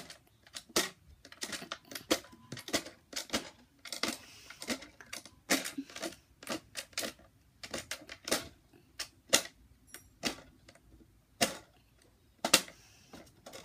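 Plastic gear on a Peppa Pig toy campervan clicking irregularly, a few clicks a second with short pauses, as it is turned by hand to wind the roof awning out.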